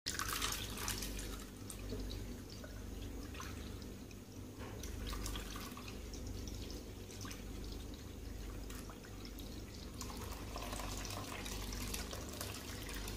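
Half a kilo of lassi (thin yogurt buttermilk) poured steadily from a glass jug into a pot of raw goat liver pieces, with a constant liquid patter and many small drips and splashes.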